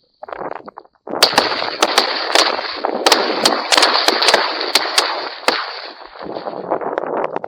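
Several hunters' shotguns firing a rapid volley at ducks: more than a dozen overlapping shots in about four seconds, starting about a second in, over a dense continuous noise.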